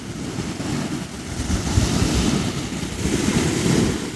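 Wind gusting over the microphone: a low, uneven buffeting rumble under a steady hiss.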